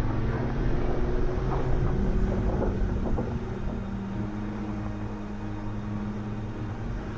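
Jeep driving slowly along a dirt trail: engine running with tyre and wind noise, a little louder over the first few seconds.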